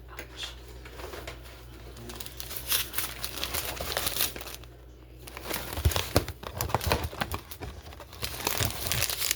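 Plastic food packaging being crinkled and handled, irregular crackling with a few dull bumps in the second half.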